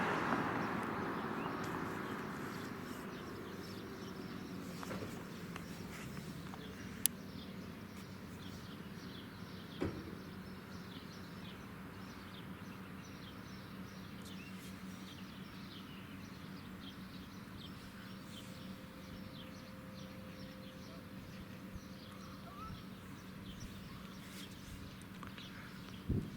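The Federal Signal Model 5T siren dying away over the first few seconds, leaving outdoor quiet with many small birds chirping and a steady low hum. Two sharp clicks stand out, about seven and ten seconds in.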